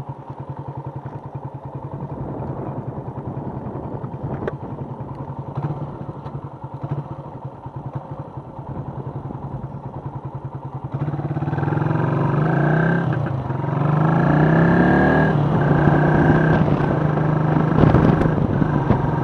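Suzuki Volty's single-cylinder four-stroke engine idling steadily while stopped, then, about eleven seconds in, pulling away louder, its revs climbing and dropping back in steps as it shifts up through the gears.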